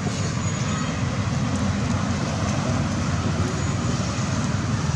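Steady outdoor background noise: a low, unbroken rumble with a hiss over it, and no distinct calls or knocks.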